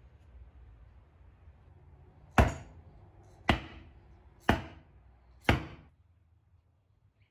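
Four sharp knocks about a second apart on the legs of a hardwood stool base, pressing dowel centres into the underside of the stool top to mark the dowel hole positions.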